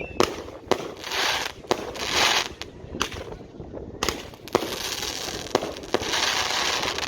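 Firecrackers and fireworks going off: a string of sharp bangs mixed with stretches of crackling hiss. The longest hiss runs from about four seconds in to near the end.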